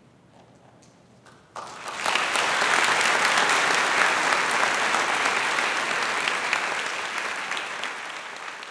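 Crowd applause: dense clapping that starts suddenly about a second and a half in and slowly fades.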